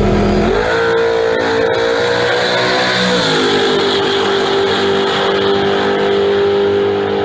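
Car engine revving: the pitch climbs about half a second in and holds high, then drops a little just after three seconds and runs on steady. A few short clicks come in the first two seconds.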